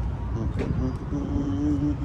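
Steady low rumble of a motor vehicle running, with a faint held tone coming in about halfway through.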